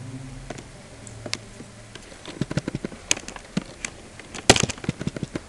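Computer keyboard keystrokes: a quick irregular run of key clicks starting about two seconds in, with a louder pair of clicks near the end.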